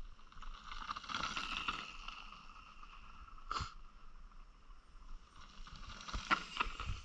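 Mountain bike coming down a stony dirt trail and passing close by: tyres crunching and scraping over stones, with a sharp knock about halfway through and a cluster of knocks and rattles as it passes, about six seconds in.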